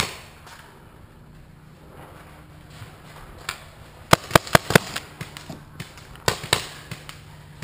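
Paintball guns firing: scattered single shots and a quick run of about five sharp pops a little after the middle.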